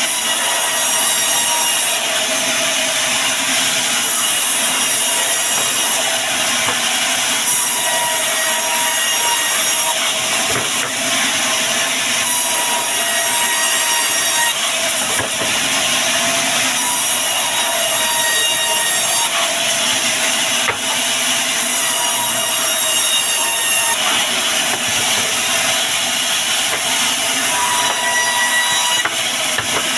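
Band sawmill running and cutting through wood without a break, a steady whine over the noise of the cut.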